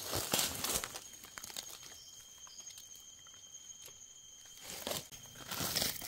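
Dry leaf litter rustling and crackling as hands and a knife dig through it to lift red Russula mushrooms from the forest floor. It comes in two bursts, one at the start and one near the end, with light crackles between.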